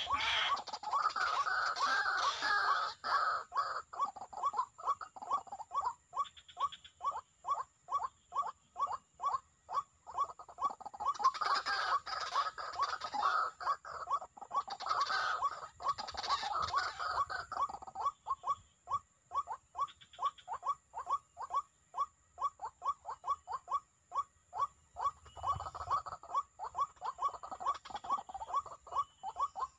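White-breasted waterhen (ruak-ruak) calling: a long, rapid series of repeated croaking notes, about three a second, with louder overlapping stretches where calls run together.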